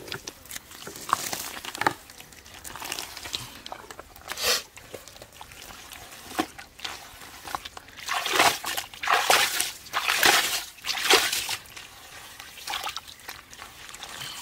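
Bare hands squelching and sloshing through wet mud and muddy water in irregular splashes. The splashes come thickest and loudest a little past the middle.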